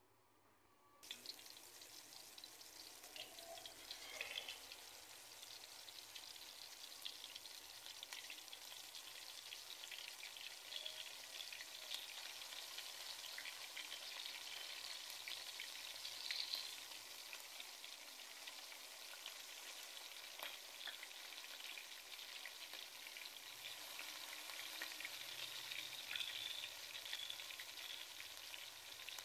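Marinated, flour-coated chicken pieces deep-frying in hot oil in a metal pot: a steady sizzle full of small crackles and pops, starting about a second in.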